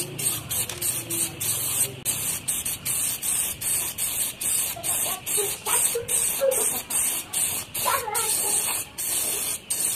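Aerosol spray can of clear coat hissing in short repeated bursts, about two a second.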